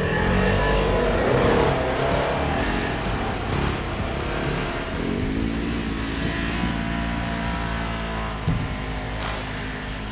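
Side-by-side UTV engines running as the vehicles pull away and climb a trail, the engine note rising and falling with the throttle.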